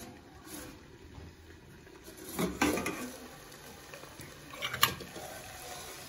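Water splashing briefly about two and a half seconds in, from the water held on top of a cooking pan's lid, followed by a sharp metal clink a couple of seconds later.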